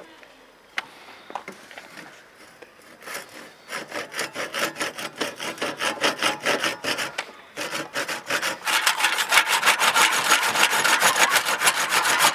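Restored 1979 crosscut hand saw cutting through a clamped wooden plank in quick, even rasping strokes. The sawing starts about three seconds in, breaks off briefly just past the middle, then resumes louder and faster.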